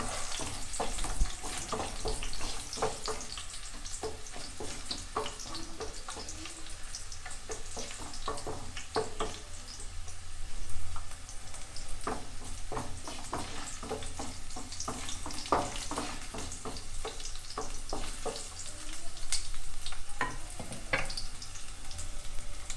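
Whole spices and green chilies sizzling and crackling in hot mustard oil, stirred in the pan with frequent short scrapes and clicks of the stirring utensil against the pan.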